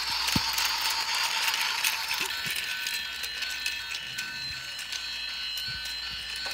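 Battery-powered Thomas the Tank Engine toy train running on plastic track: its small motor and plastic gears whir steadily with a fast clicking, and the whine changes pitch about two seconds in. A few soft knocks come in between.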